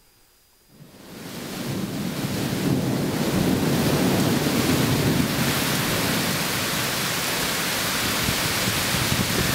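Heavy rain pouring down in a severe thunderstorm, with a low rumble underneath. It fades in about a second in and then holds steady.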